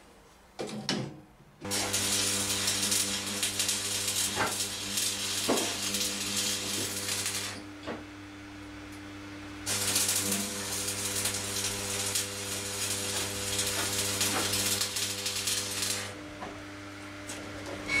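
Electric arc welder laying two welds of about six seconds each: a steady crackling hiss with a low hum underneath, after a couple of short knocks near the start.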